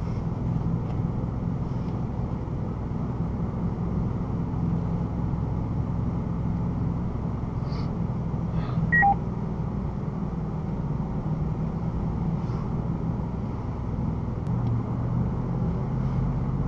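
Recovery vehicle's engine running steadily at a crawl, heard from inside the cab while it tows another vehicle. About nine seconds in, a short two-note electronic beep sounds, a high note then a lower one.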